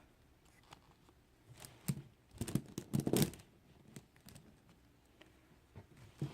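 Plastic pony beads and fabric fringe strips being handled. There is a cluster of light clicks and rustles in the middle, then a few scattered small clicks.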